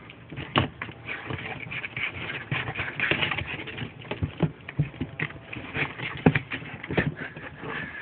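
Kittens scrambling and being handled behind a washing machine: irregular light taps, knocks and scuffling, with a few sharper knocks.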